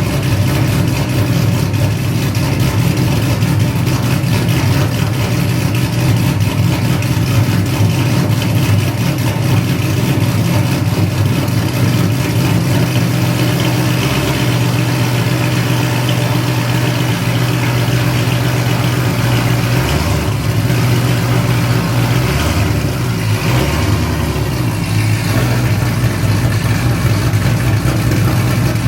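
Car engine idling steadily, its pitch shifting a few times about 20 to 25 seconds in.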